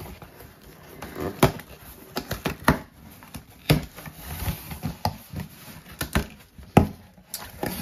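Cardboard shipping box being pulled open by hand, with irregular sharp crackles and rustling from the cardboard flaps and the crinkly plastic wrapping inside.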